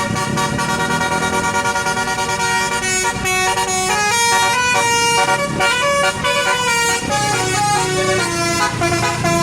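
Indonesian bus 'telolet' horn playing a melody: a run of steady horn notes stepping up and down in pitch, with a low rumble from the bus underneath.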